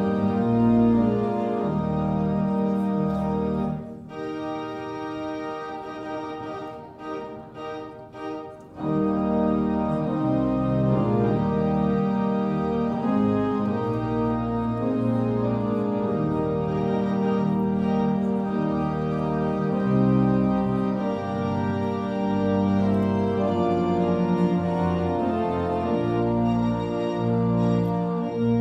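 Organ playing processional music in sustained full chords; it drops to a softer passage about four seconds in and swells back to full about nine seconds in.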